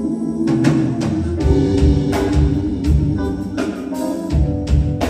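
Live soul band playing: drum kit, bass and electric guitar come in about half a second in with a steady beat under held chords.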